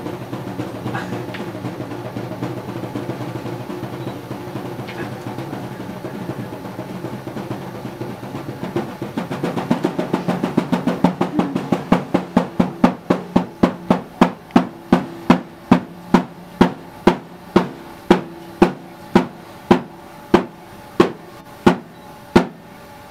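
Percussion: a fast drum roll that breaks up, from about nine seconds in, into separate sharp strikes that slow steadily and stop shortly before the end, over a low steady drone.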